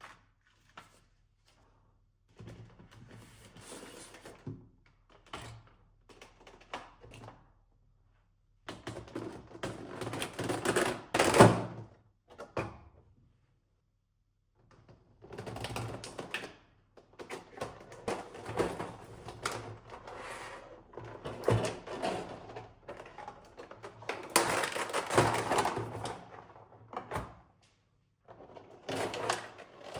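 Unboxing handling noises: packaging rustling and scraping, broken by small clicks and knocks. They come in several bursts of a few seconds each, with silent gaps between, and the loudest knock falls near the middle.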